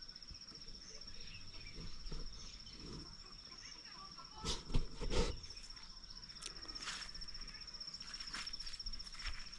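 An insect trilling steadily in one high, finely pulsing note, with a few short crackling sounds, the loudest about four and a half to five seconds in.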